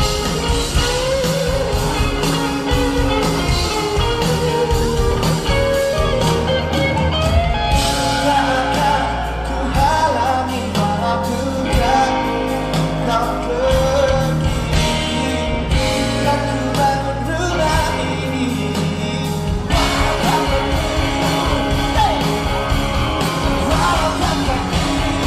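Pop-rock band playing a song live through a PA: a male lead singer over electric guitars, bass guitar, drums and keyboard.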